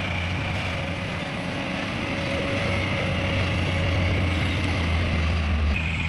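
Heavy diesel machinery running steadily: a deep engine hum with a steady high-pitched whine over it. The low hum thins just before the end.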